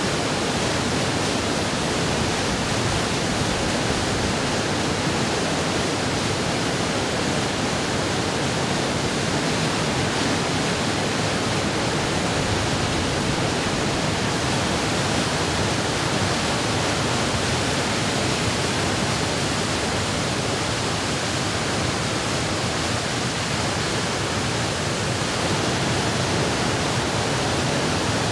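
Steady rush of a high-pressure jet of water blasting from a large dam discharge valve's outlet pipe and crashing into the water below.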